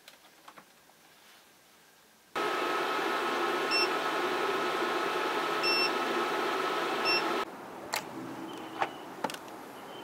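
Compressor-type portable spot air conditioner running with a loud steady whir and hum, starting abruptly about two seconds in. Three short high beeps sound over it as its control-panel buttons are pressed. It stops abruptly about seven seconds in, leaving a quieter background with a few clicks.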